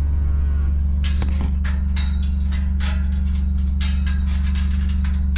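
A utility vehicle's engine idling with a steady low hum, while metal clinks and rattles come from a steel livestock pen gate's chain and latch being worked, starting about a second in.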